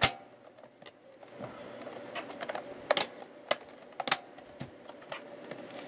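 Irregular sharp plastic clicks and taps, like the buttons and case of a Realistic DX-440 portable radio being pressed and handled. The loudest clicks come at the start and around three and four seconds in, over a faint steady hum.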